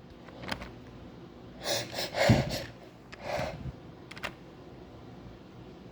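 A woman breathing hard and sniffing between sneezes: sharp breathy sniffs a little after one second in, strongest a little over two seconds in, and another about a second later, with a couple of faint clicks.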